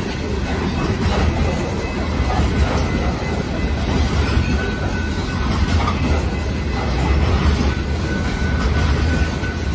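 Hopper cars of a BNSF coal train rolling past at close range: a steady, loud low rumble with the clatter of steel wheels over the rail joints.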